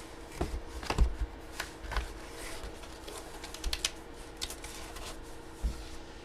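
Hands handling objects and packaging on a tabletop: irregular light clicks, taps and rustles, loudest about a second in, over a faint steady hum.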